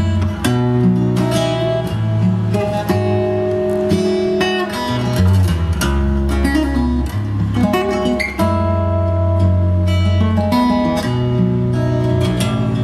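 Music: plucked acoustic guitar over a deep bass line, played as a hi-fi listening test.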